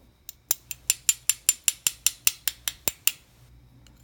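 A quick, even run of about fourteen sharp metallic clicks, about five a second, like a small ratchet being worked, stopping about three seconds in.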